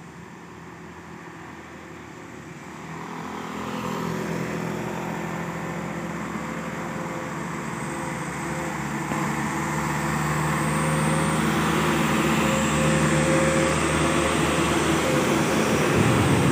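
Engines of a line of sugarcane-laden trucks climbing toward and passing close by, a steady diesel engine hum that grows louder from about three seconds in and is loudest near the end as a truck goes past.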